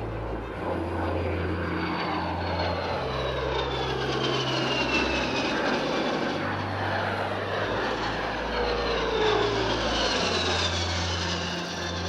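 Kawasaki C-1 transport jet's twin turbofan engines flying past, a broad rushing noise with a high turbine whine that falls in pitch as the aircraft goes by, and a second falling whine near the end.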